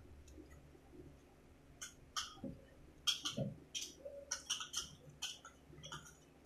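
Quiet, scattered small clicks and scrapes of people eating ice cream with plastic spoons from paper cups, with lip smacks in among them.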